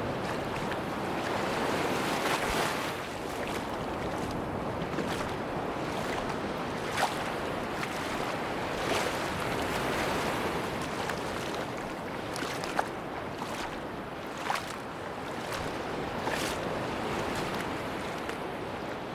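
Sea waves washing onto a beach as a steady surf noise, with short crisp sounds every couple of seconds.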